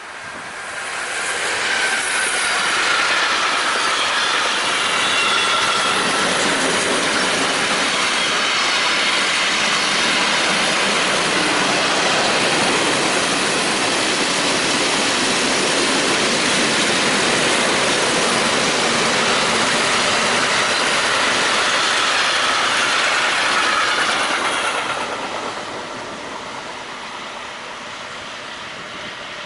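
Freight train hauled by a Class 186 Traxx electric locomotive passing close by, its wagons' wheels rumbling and clattering on the rails. The sound builds over the first two seconds, holds steady and loud, then drops off sharply about twenty-four seconds in as the train goes by.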